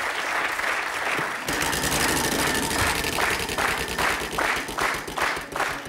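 Studio audience applauding, then about a second and a half in a game-show prize wheel is spun: its pointer clicks rapidly against the pegs on the wheel's rim, slowing to about three clicks a second.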